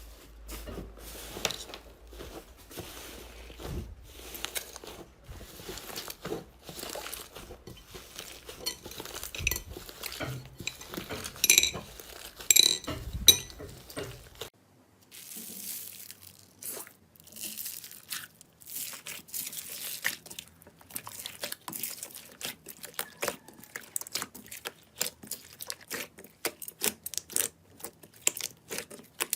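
Slime being squeezed and poked by hand: a dense run of small clicking and popping sounds, with a few sharp ringing clinks a little before halfway. A low hum under it stops about halfway, and after that the popping is quicker and crisper.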